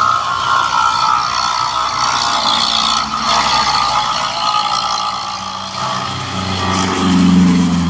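Traffic on a rain-soaked road: tyres hissing through water as motorcycles and a small truck pass, then a heavily loaded truck's engine grows louder from about six seconds in as it passes close, loudest near the end.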